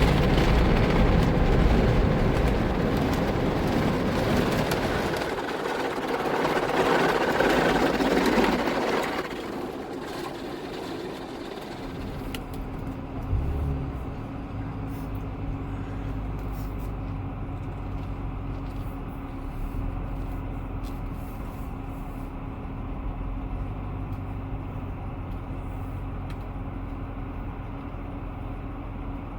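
Loud rushing noise for about the first nine seconds, then it drops away, leaving a steady low vehicle hum with one short thump near the fourteen-second mark.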